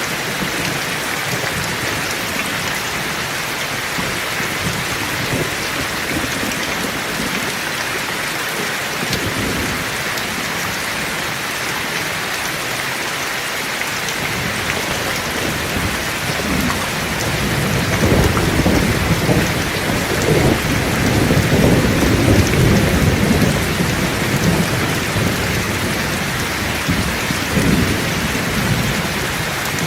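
Heavy rain falling steadily. From a little past halfway, low thunder rolls in and rumbles on for several seconds, with more rumbles near the end.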